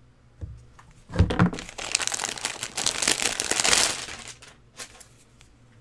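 Packaging crinkling and rustling as it is handled. It starts about a second in with a dull knock and runs for about three seconds, followed by a couple of sharp clicks.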